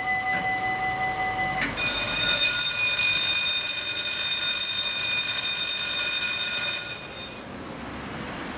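Bridge warning signals: a steady electronic warning tone stops, and a louder electric warning bell rings for about five seconds, then stops and its ringing fades out.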